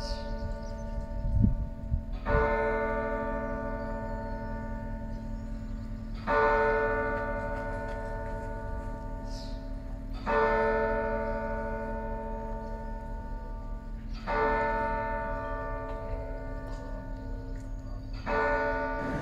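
A large cathedral bell tolls five times, one strike about every four seconds, each ringing on and fading before the next. A couple of low thumps come about a second and a half in.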